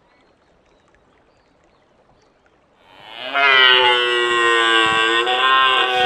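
Deer stag roaring: one long, loud, pitched bellow, added as a sound effect, that swells up about three seconds in and holds for roughly three and a half seconds before cutting off. Faint bird chirps come before it.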